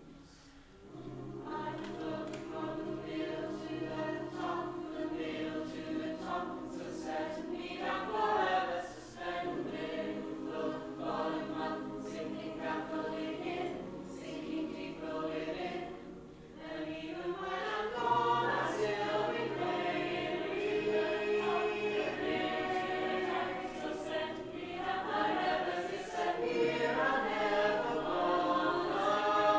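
Unaccompanied choir singing in layered, sustained harmony, with several voice parts moving against each other. The singing briefly thins about a second in and again just past halfway, then swells back.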